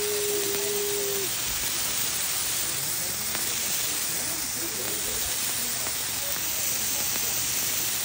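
Two handheld paper-wrapped sparklers burning close to the microphone, giving a steady sizzling hiss of spraying sparks. A steady tone stops about a second in.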